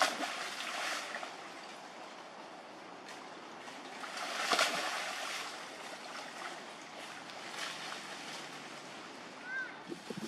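Macaques jumping from branches into a moat: water splashing and leaves rustling in sudden surges over steady water noise, the loudest about four and a half seconds in.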